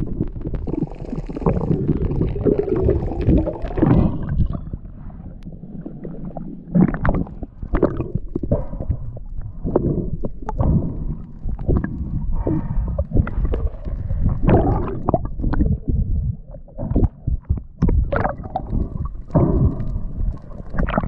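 Muffled underwater gurgling and rumbling, giving way about four seconds in to irregular knocks and thumps.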